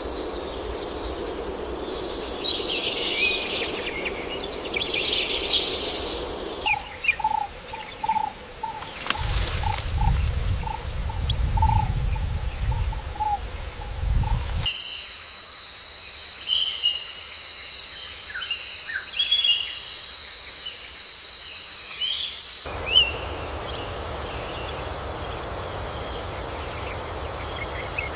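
Wild nature ambience that changes abruptly every several seconds. It starts with bird chirps. Next comes a call repeated several times a second with a low rumble, then a steady high insect buzz with scattered bird chirps, then a steady insect drone.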